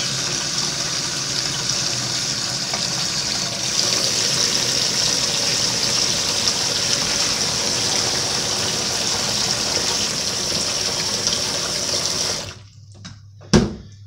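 Water from kitchen taps pouring into a stainless steel sink of soapy water. It grows louder about four seconds in as a second stream joins, stops abruptly near the end when the taps are shut, and one sharp knock follows.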